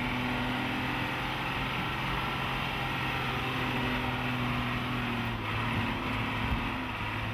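Mercedes-Benz four-wheel-drive truck's engine running steadily as the truck drives, heard from inside the cab, with a steady hum under road noise.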